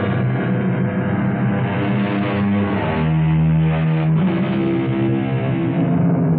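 Instrumental music led by guitar, with held chords that change about three seconds in and again about a second later.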